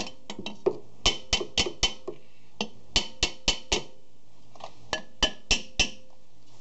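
A hammer rapping on the rusted cast-iron rear brake drum of a 1997 Chevy Astro van, each blow ringing briefly. The blows come in quick runs of four or five with short pauses between. The tapping is meant to break the rust that seizes the drum to the hub.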